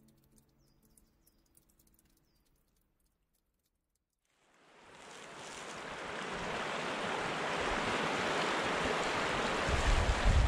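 Strong, blustery wind rushing steadily, fading in about halfway through after a brief silence, with low buffeting gusts on the microphone near the end. A faint music ending fades out at the start.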